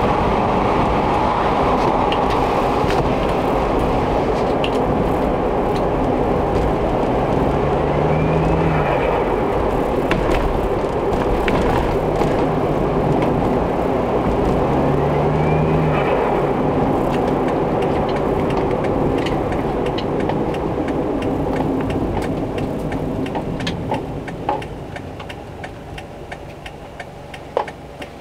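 Suzuki Every Wagon DA64W turbocharged kei van driving, with steady engine and road noise and two brief rising whines about a third and halfway through. The van has a suspected fault in its air bypass valve (ABV) / 3-way solenoid valve. Near the end the noise dies down as it slows, with a few sharp clicks.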